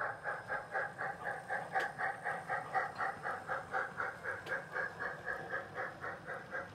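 Sound-equipped O scale Southern Pacific 4-8-0 Mastodon model steam locomotive chuffing steadily from its onboard speaker, about four to five chuffs a second.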